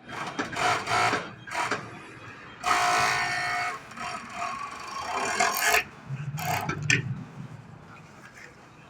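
VOLTEX high-speed overlock sewing machine with tape binder running in short stop-start bursts, the longest a steady high whine of about a second.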